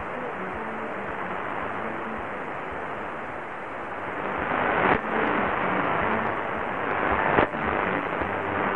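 Qodosen SR-286 portable radio on 1179 kHz medium wave, pulling in a weak distant AM station about 1300 km away: mostly hiss and static with faint programme audio buried underneath. The noise swells twice, about halfway and near the end, each time dropping off suddenly.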